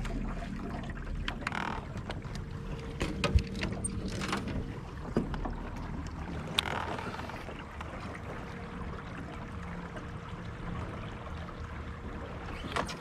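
A low steady rumble of wind and water with scattered sharp clicks and knocks and three short swishing noises: fishing tackle handled while casting and working a soft-plastic worm.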